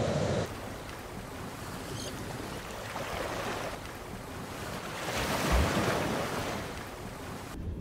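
Ocean surf and wind on a rocky shore, with a wave breaking louder about five seconds in.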